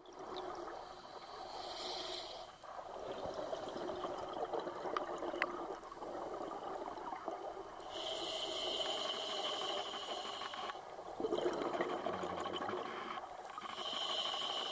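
Scuba diver breathing through a regulator underwater: a hiss on each inhalation, three times, with gurgling exhaust bubbles between breaths.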